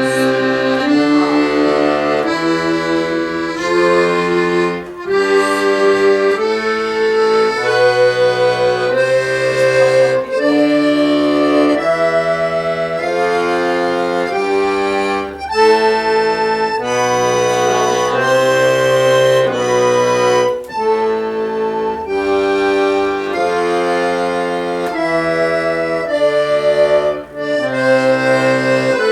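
Accordion playing the C major scale legato with both hands over two octaves, in even, stepwise notes that climb and fall, with short breaks between runs. The teacher judges the bellows changes in this playing imprecise.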